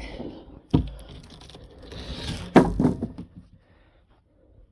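Particle board being handled and set down on a wooden ramp frame: two sharp wooden knocks, one about a second in and one past the middle, with a brief scraping slide between them.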